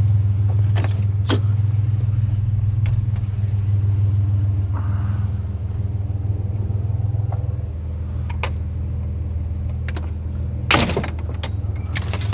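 Truck engine idling steadily, with a few sharp knocks and clanks of scrap metal being handled; the loudest clank comes near the end.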